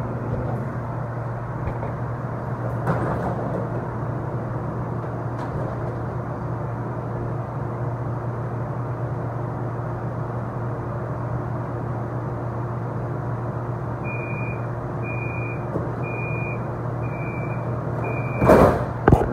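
Tide light rail car standing at a station with a steady low hum from its onboard equipment. About 14 s in, the door-closing warning sounds five evenly spaced high beeps, then the doors shut with a loud thud near the end.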